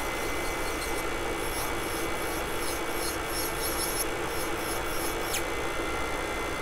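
Battery-powered Aizumi nail drill's sanding bit grinding gel polish off a fingernail: a scratchy rasp in short strokes over a steady motor hum. The rasping stops about five seconds in, as the drill's battery runs flat.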